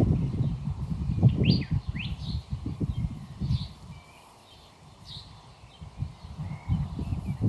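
Small birds chirping in short calls and quick upward sweeps, over an irregular low rumbling that eases off for a couple of seconds midway.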